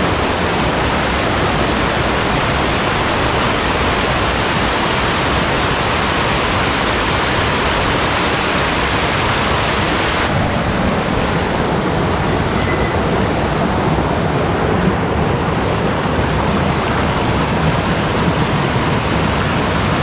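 Mountain stream water running over rocks: a loud, steady rushing, its tone shifting slightly about ten seconds in.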